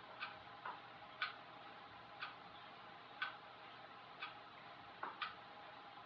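Faint, even ticking about once a second, like a clock, with a few softer clicks falling in pitch in between.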